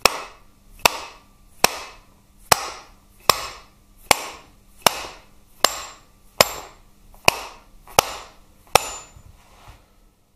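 Nylon hammer striking the end of a Harley-Davidson Twin Cam transmission shaft to knock the shafts out through the trapdoor bearings. About a dozen steady blows come a little under a second apart. Each blow has a short ring after it.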